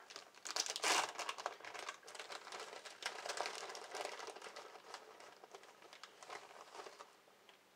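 Plastic bag of shredded cheese crinkling as it is handled and tipped, loudest about a second in and tapering off near the end.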